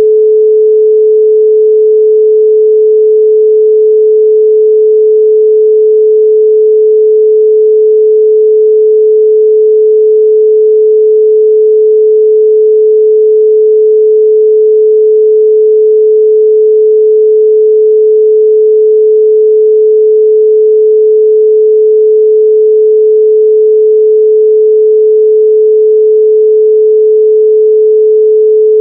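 A pure 432 Hz sine tone held steady and loud at one unchanging pitch, with no overtones.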